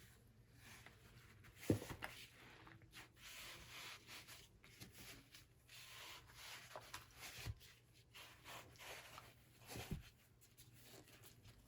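Faint scratchy rubbing and scraping, with a few sharp clicks or taps now and then.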